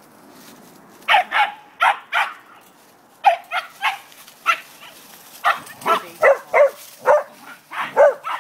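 Corgi barking repeatedly in short, high-pitched barks, some in quick pairs, starting about a second in: excited play barking at a dog across the fence.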